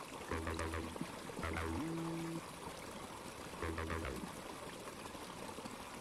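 Background music: a low melody of held notes with a short upward slide, the same phrase coming back about every three seconds.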